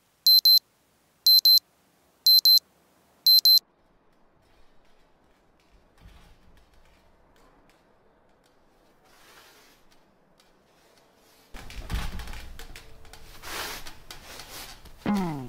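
Electronic bedside alarm clock beeping: four short high beeps about a second apart, stopping about three and a half seconds in as it is switched off. Faint rustling follows, then a louder stretch of rustling and clattering from about eleven seconds in.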